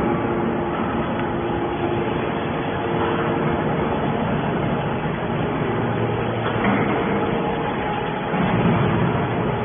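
Scrap metal shredding and baling machinery running: a dense, steady mechanical din with a hum of steady tones underneath.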